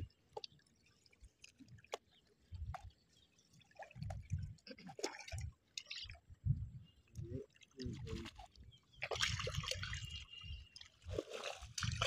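Irregular wet splashing and squelching of hands and feet in shallow water and mud as a fishing net is worked by hand, with scattered low thuds and clicks; the splashing grows louder and denser in the last few seconds.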